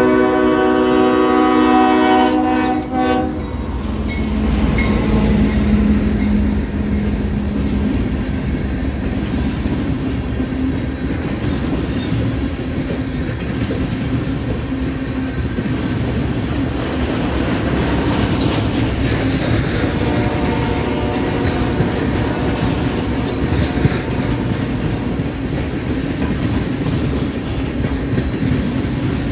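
Horn of CSXT 5265, a GE ES40DC diesel locomotive, sounds one chord for about three seconds. Then the locomotive runs by, followed by a steady clickety-clack of the rail train's flatcar wheels rolling past.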